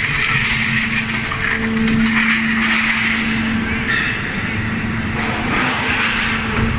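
Q91-1250 heavy-duty hydraulic scrap shear working, its hydraulic power unit giving a loud, steady hum under a continuous hiss of machine noise.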